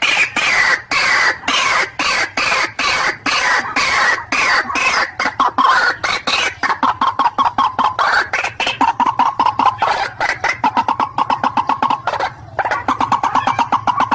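White-breasted waterhen (ruak-ruak) calling: a fast run of short, harsh repeated notes, a few each second, packing closer together later on.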